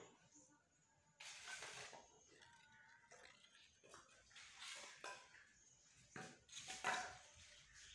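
Mostly near silence, broken by a few faint rustles about a second in and around the fifth second, and a short sharp rustle near the end.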